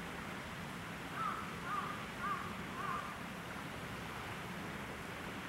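A crow cawing four times in quick succession, about half a second apart, starting about a second in, over steady outdoor background noise.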